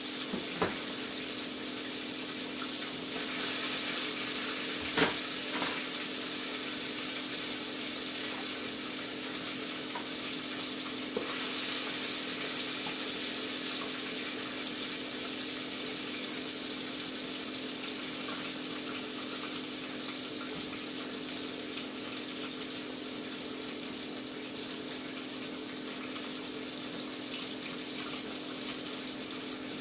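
Fish in gravy sizzling steadily in a skillet, over a steady low hum. A few utensil clicks and knocks against the pan, the loudest about five seconds in.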